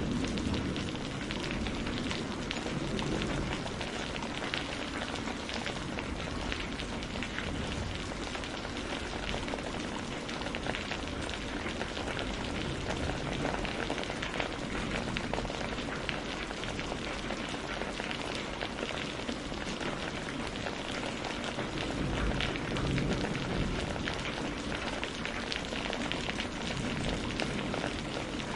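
Steady rain pattering on a greenhouse roof, a dense even patter of drops. A low rumble dies away in the first second or so.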